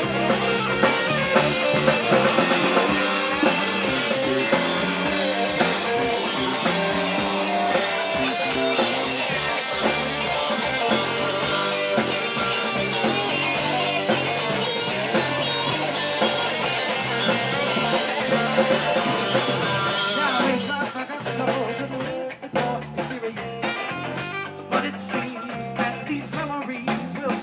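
Live rock band playing an instrumental section: a tenor saxophone playing over electric guitar and drum kit. About twenty seconds in, the full sound thins out, leaving guitar and drums with sharper cymbal hits.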